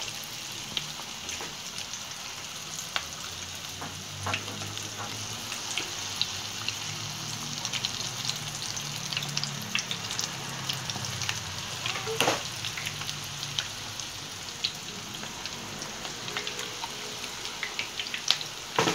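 Puff-puff dough balls deep-frying in hot sunflower oil: a steady sizzle dotted with crackles and pops, with a louder crackle about twelve seconds in and another near the end.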